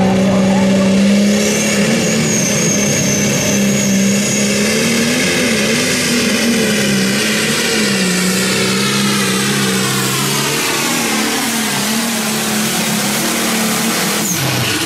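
John Deere pulling tractor's turbocharged diesel engine running flat out under load as it drags the weight sled, its pitch wavering during the pull. A thin high whistle sounds for the first few seconds, and the engine drops off sharply just before the end.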